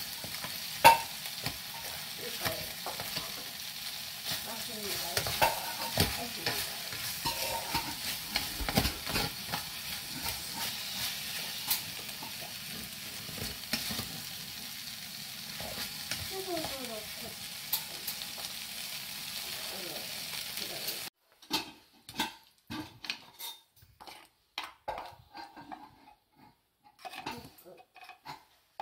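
Vegetables sizzling in oil in a metal camping pot while being stirred, the utensil clicking and scraping against the pot. About three-quarters of the way through, the sizzling cuts off suddenly, leaving separate metal clinks and scrapes as the food is scraped out of the pot into a steel bowl.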